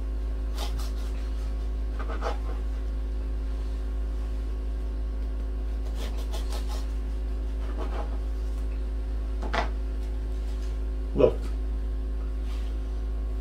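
Serrated bread knife sawing through a loaf of banana bread on a plastic cutting board, in a few short runs of rasping strokes, with two sharper knocks near the end. A steady low hum runs underneath.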